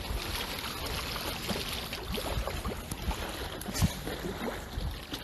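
Wind buffeting a phone microphone over the wash of the sea, with a few small clicks.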